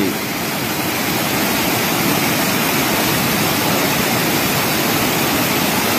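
Floodwater pouring over a dam spillway and rushing down a rocky channel: a loud, steady rush of water from a reservoir overflowing after heavy rain.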